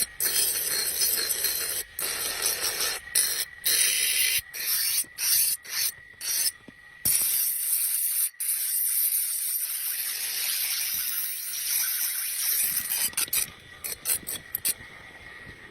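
Harsh, hissing scrape of a dao blade being sharpened, broken again and again by abrupt short gaps.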